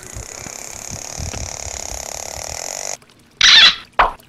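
Close rubbing and rustling of hands handling a rubber orca toy for about three seconds, cutting off suddenly; then two short, loud noises about half a second apart near the end.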